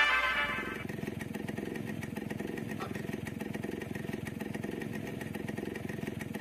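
Background music fading out over the first second, then an engine idling with a steady, even pulse that cuts off abruptly at the very end.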